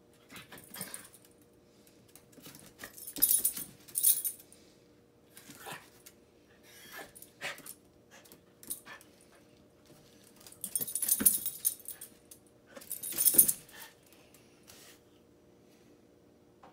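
Yorkshire terrier giving a string of short vocal bursts, several of them loud, as it begs for food.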